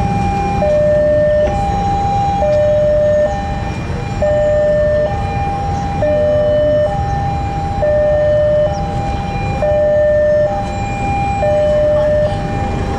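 Railway level-crossing warning alarm sounding a steady two-tone alternation, a higher and a lower tone taking turns about once a second, over the low rumble of a diesel train.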